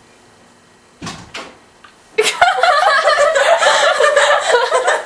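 Two short thumps about a second in, then people laughing from about two seconds in.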